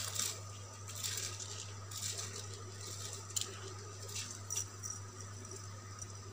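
Soaked basmati rice being tipped by hand from a plastic bowl into a pot of boiling water: a soft, irregular pattering and slushing of wet grains going in, with a few light scrapes. A steady low hum runs underneath.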